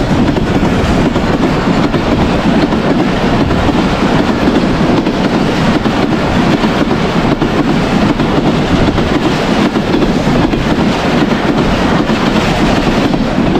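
Karakoram Express passenger train passing close at high speed: a loud, steady rumble of wheels on rail with a rapid clatter over the joints.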